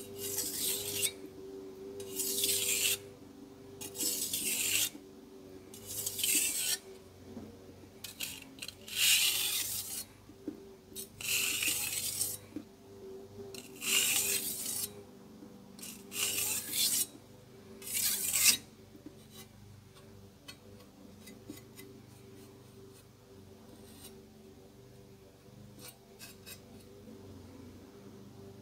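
Kitchen knife blade drawn across a whetstone in about ten even scraping strokes, roughly one every two seconds; the strokes stop a little past halfway, leaving only a few light clicks.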